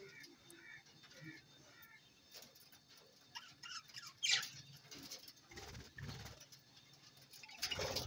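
Budgerigars chirping and chattering softly: a quick series of short chirps at the start, scattered calls after, and one louder, sharp call about four seconds in. Low rumbles come in the second half.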